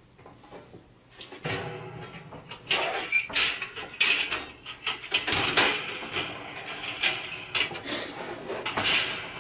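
Irregular rubbing and scraping with many light knocks as the kerosene heater and its parts are handled.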